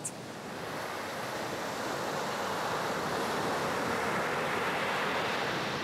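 Ocean surf: a steady rush of breaking waves that slowly swells and eases off again.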